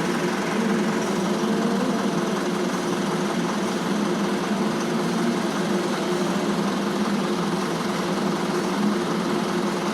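A small engine running steadily at constant speed, a continuous mechanical hum that does not change.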